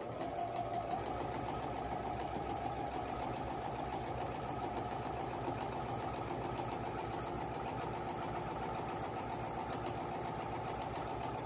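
Pfaff sewing machine running at a steady speed, its needle stitching a long straight seam through layers of fabric with a fast, even rhythm.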